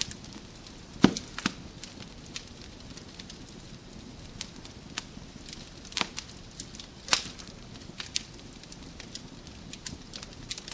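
Wood fire crackling in a fireplace: scattered sharp pops and snaps over a soft steady hiss, the loudest pop about a second in and two more near six and seven seconds.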